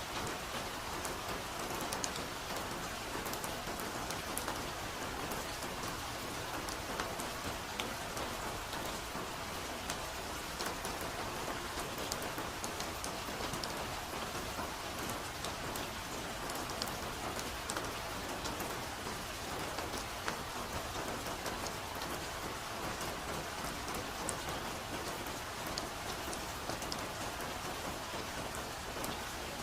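Steady soft rain falling on foliage, an even hiss with scattered close drops ticking throughout.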